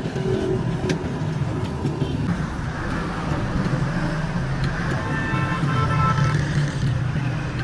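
Motor vehicle engine running steadily with roadside traffic noise. A brief high tone sounds about five seconds in.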